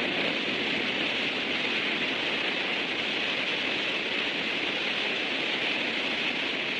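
Steady, even hiss with no other sound standing out.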